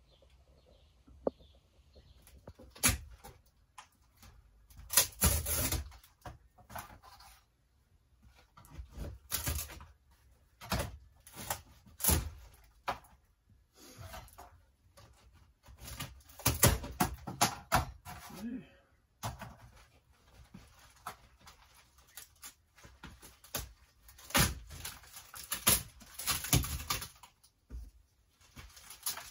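Water-rotted wooden framing around a motorhome's cab-over window being pulled and torn out by hand: irregular cracks, crunches, scrapes and knocks in clusters, with short pauses between them.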